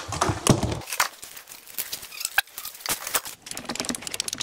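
Irregular clicks and knocks of wire and parts being handled at a metal electrical breaker panel, with a quick run of light ticking near the end.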